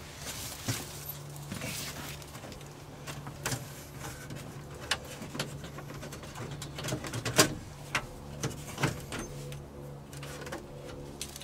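Scattered light clicks and knocks of hands handling parts at an old truck's dashboard and steering column, over a steady low hum.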